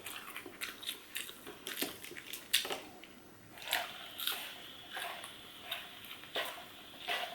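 Close-up eating of fast food: biting and chewing, heard as a run of short, irregular crunches and mouth clicks.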